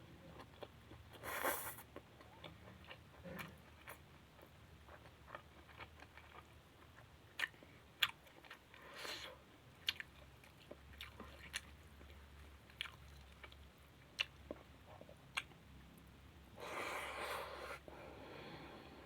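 Close-miked chewing and mouth sounds of someone eating a meal, with scattered sharp wet clicks and smacks. Three longer, louder noisy bursts stand out: one near the start, one in the middle and one near the end.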